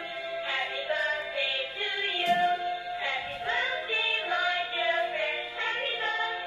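A dancing cactus toy playing a sung song through its built-in speaker, with a swooping pitch slide about two to three seconds in.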